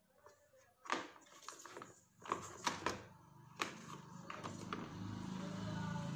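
Handling noise from an induction cooktop's power-supply circuit board being lifted and turned over in its plastic housing: several sharp clicks and knocks, then a low steady hum about halfway through.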